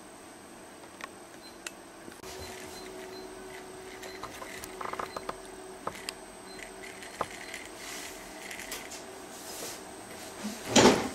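Light clicks and taps of a small pocket compass being picked up and handled over a copper-wound toroid coil, with a faint steady hum in the middle of the stretch and one short, louder burst of noise near the end.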